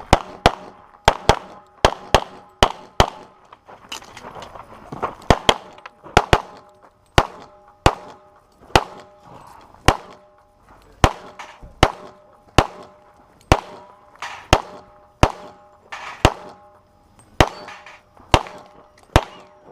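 A pistol firing a rapid course of fire: about three dozen shots in quick pairs and short strings, with brief pauses between target arrays.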